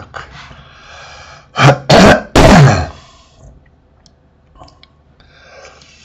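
A man clearing his throat loudly close to the microphone: three harsh bursts in quick succession about two seconds in, the last one sliding down in pitch.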